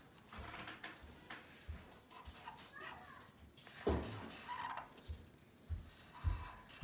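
Felt-tip marker scratching on paper in short colouring strokes, with hand and paper handling noise, a sharp knock about four seconds in and a few soft thumps after it.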